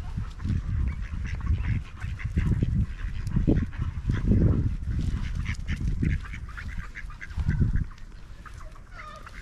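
Several ducks quacking repeatedly in short calls over a loud, uneven low rumble that eases near the end.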